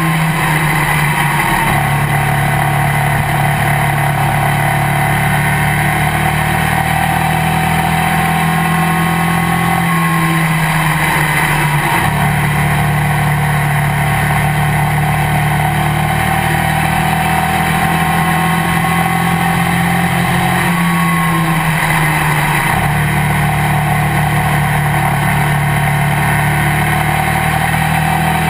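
Race car engine at speed, heard from inside the cockpit: a loud, steady engine note over wind and road noise, with the low end of the note shifting briefly twice, about ten and about twenty-one seconds in.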